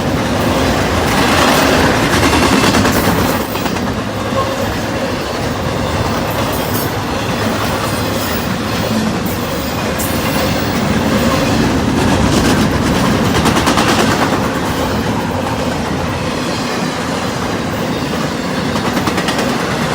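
Freight train cars rolling past at speed, a loud steady rumble with wheels clacking over the rail joints.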